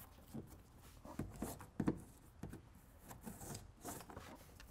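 A hand pressing and rubbing an aluminium-foil-backed sound-deadening mat onto a car's inner door panel: faint, irregular crinkles and light taps.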